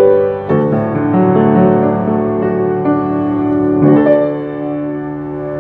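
Piano playing slow, held chords of a worship song, with no singing. The chords change about half a second in and again near four seconds.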